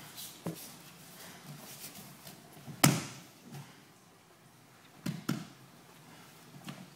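A body slamming onto a padded dojo mat with a loud slap about three seconds in as the partner is thrown down, then two quicker slaps on the mat a couple of seconds later.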